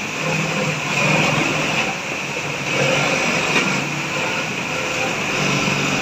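Automatic industrial sewing machine stitching Velcro onto a back pocket, its motor running in repeated bursts of about a second over steady machine noise.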